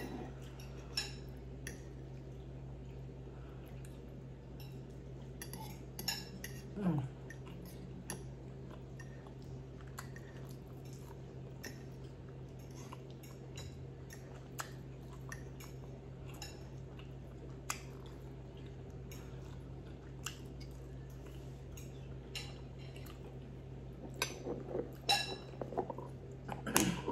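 Metal fork clinking and scraping on a ceramic plate every few seconds while someone eats, over a steady low hum. Near the end a quick run of louder clinks and knocks as a glass sauce jar is picked up and handled.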